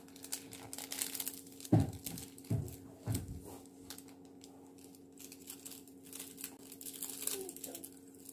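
Small plastic seasoning packet being torn open and crinkled by hand, with light crackling as it is worked and shaken over the food, and a few soft thumps about two to three seconds in. A steady low hum runs underneath.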